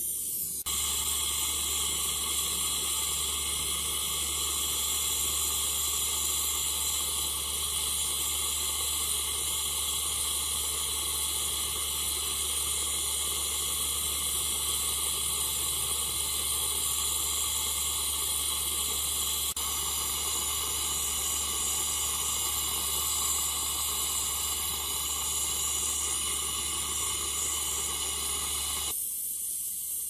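Gas brazing torch flame hissing steadily as it heats a copper pipe joint on a refrigerator compressor. The hiss starts abruptly about a second in and cuts off just before the end.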